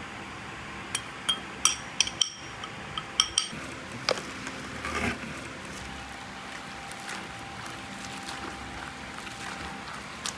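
A quick run of about eight sharp, ringing clinks of tableware being handled, followed by a single knock and a short scrape. After that, only steady background hum is heard, with one more clink near the end.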